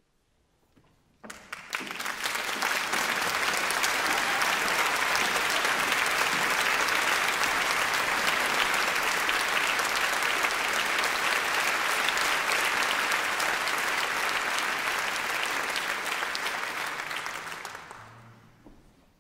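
Concert-hall audience applauding. It starts suddenly about a second in, holds steady, and dies away near the end.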